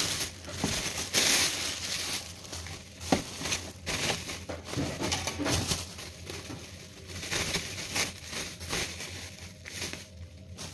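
Clear plastic packaging bags crinkling and rustling as they are pulled off the parts of a new stand fan, loudest in the first couple of seconds, with a sharp knock about three seconds in.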